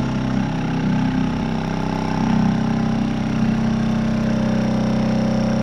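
Electric pump running steadily with a constant hum and not shutting off even with its port sealed, the sign that its shut-off switch is bad.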